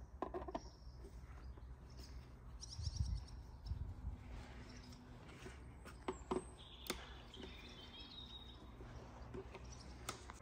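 Faint background ambience with a low steady hum, a few sharp clicks and taps from handling wires and a small screwdriver in a wiring loom, the loudest about seven seconds in, and birds chirping in the background.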